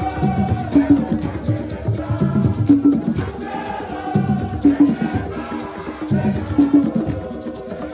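Borborbor dance music played live: a drum ensemble beats out a phrase that repeats about every two seconds, and voices sing over it.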